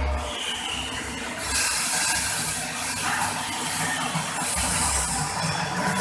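Freshly roasted coffee beans pouring out of a 5 kg drum roaster's discharge door into its stirring cooling tray: a loud rushing hiss of beans that starts about a second and a half in and keeps going.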